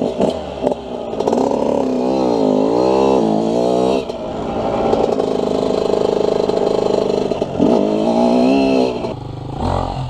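Dirt bike engine revving up and down as the bike rides off-road, its pitch rising and falling again and again, with a brief drop about four seconds in.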